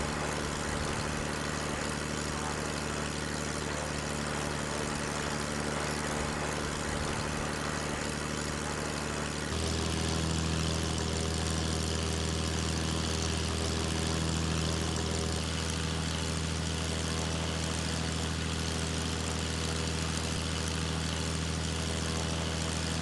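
An engine running steadily at idle, a continuous droning hum; about nine and a half seconds in its tone changes and it gets a little louder, then holds steady again.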